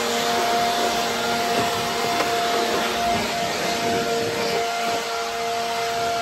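WORX electric leaf blower running steadily, a rush of air with a fixed motor whine in it, blowing dust out of a zero-turn mower's battery rack.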